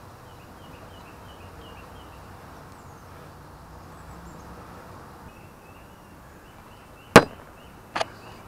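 Two sharp knocks of something being handled close to the microphone, the first about seven seconds in and the loudest, the second weaker about a second later, over a quiet background with faint, evenly repeated chirps.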